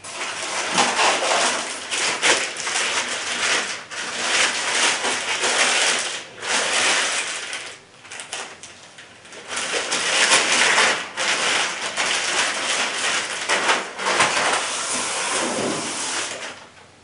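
Plastic wrapping crinkling and rustling as it is handled and pulled off a rifle, in bursts with a few brief pauses.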